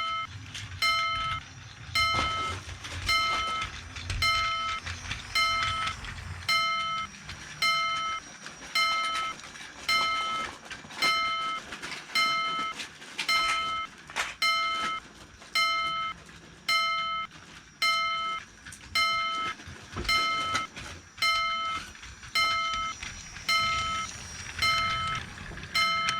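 Japanese railroad crossing warning bell ringing steadily, one ding about every second. A train runs past underneath it for the first few seconds.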